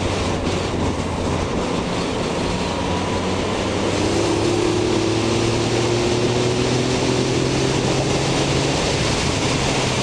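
Yamaha XSR900's 850 cc inline-three engine pulling steadily while riding, under a constant rush of wind and road noise. The engine note rises slowly from about four seconds in.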